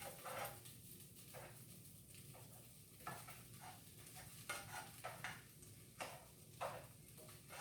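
Faint, irregular scrapes and clinks of a utensil stirring chicken sausage, bell pepper and onion in a pan, over a low sizzle.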